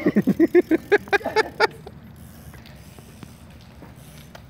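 Excited laughter in a quick run of short bursts for about the first second and a half, then a low steady hum with a few faint ticks.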